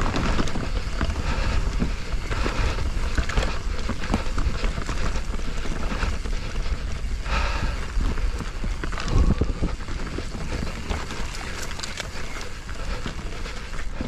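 Mountain bike riding fast down a rough dirt trail: tyres on dirt, with frequent knocks and rattles from the bike over bumps, and wind rushing over the camera microphone.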